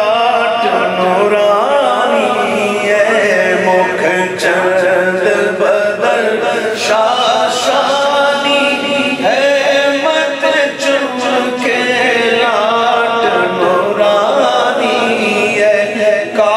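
A man singing a naat, an Urdu-Punjabi devotional poem, unaccompanied into a microphone, in long wavering melodic lines.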